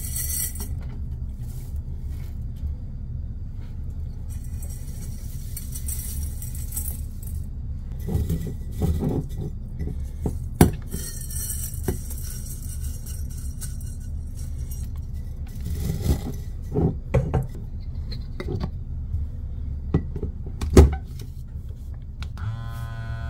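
Dried carrot shreds rustling as they are poured and handled in a stainless steel bowl and glass jar, with several clinks and knocks of metal and glass, the sharpest near the end, over a steady low hum. In the last second a small motor starts buzzing: a handheld jar vacuum sealer pumping the air out of a jar.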